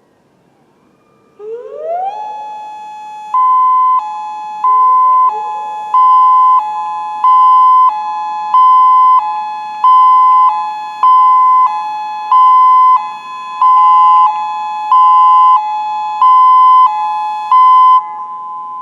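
Federal Signal Modulator 6024 outdoor warning sirens sounding the hi-lo signal. About a second and a half in, the tone glides up to a steady low note. It then alternates between that low note and a higher note, the high note coming back about every 1.3 seconds. A second rising tone joins about five seconds in.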